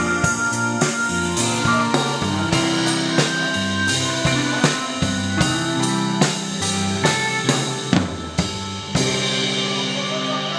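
Rock band playing an instrumental passage: a drum kit keeping a steady beat under bass guitar, electric guitars and synthesizer chords. Near the end the drumming stops and the last chords ring out.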